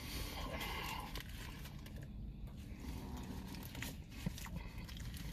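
Faint crinkling and rustling of a burger's paper wrapper as it is handled, with a few light clicks and scrapes.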